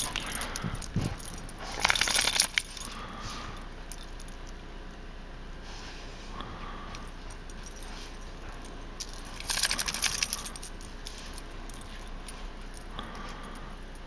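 Labrador retrievers moving through snow: crunching steps and jingling collar tags, in two short bursts about two seconds in and about ten seconds in.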